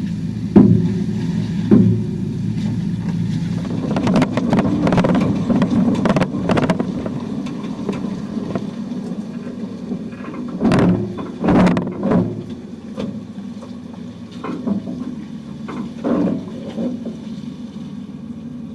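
A 4x4's engine running steadily at low revs while crawling a trail, with several sharp knocks and thumps scattered through.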